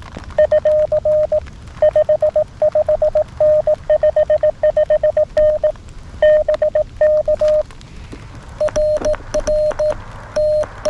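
Morse code (CW) tone from a (tr)uSDX QRP transceiver: a received station sends "rr gm ur 55n 55n bk" in quick dits and dahs. About a second's pause follows, then the reply starts on a straight key, heard as sidetone with a click at each keying.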